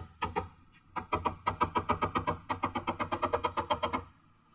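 Background music of quick, evenly paced plucked notes, with a brief pause shortly after the start and a fade near the end.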